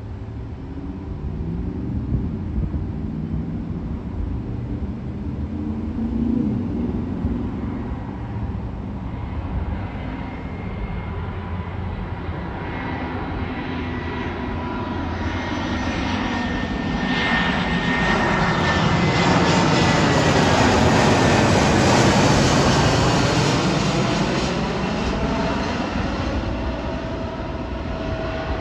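An Airbus A319-114 airliner on final approach flies low overhead on its CFM56 turbofan engines. The jet noise builds to a peak about two-thirds of the way through, its whine dropping in pitch as the plane passes, then fades as it moves away.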